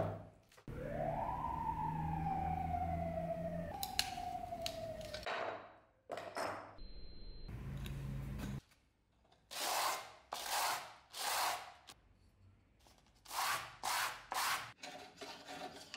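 Rubbing strokes over the steel knife blade on the wooden workbench: three strokes, then after a pause four more near the end. Earlier come two long falling squeals, then a few light clicks.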